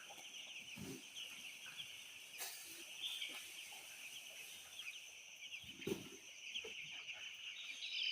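A flock of free-range chickens clucking and chirping steadily as they eat, with a few brief knocks mixed in.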